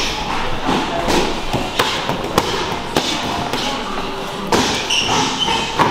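Gloved punches and kicks landing on a sparring partner's guard in kickboxing partner drills: several irregular sharp thuds and slaps, the loudest about two and a half seconds in.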